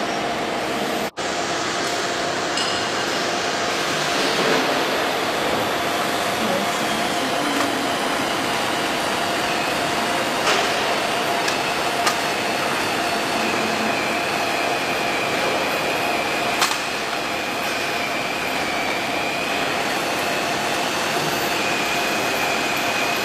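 Workshop machinery running steadily: a constant hum under a noisy wash, with a higher whine joining about halfway through and a few sharp clicks.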